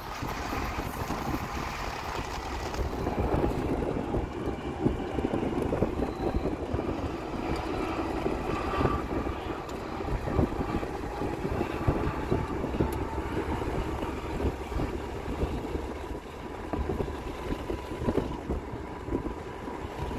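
Road and wind noise of a car driving alongside a freight train led by diesel locomotives, with the train's rumble mixed in and fading toward the end.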